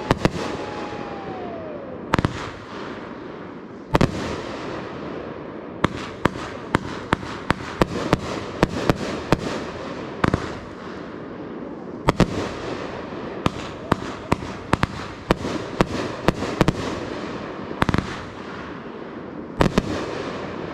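Fireworks display: aerial shells bursting with sharp bangs, at times in quick runs of pops, with crackling in between. A short falling whistle sounds near the start.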